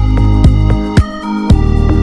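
Electronic background music: held synth chords over a steady beat of about two hits a second.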